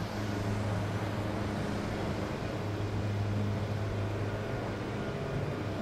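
Outdoor propane burner running under a wide pan of heating frying oil: a steady low hum over an even hiss.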